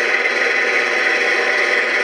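Steady static hiss from a radio receiver, even and unbroken, with no voice or alert tones.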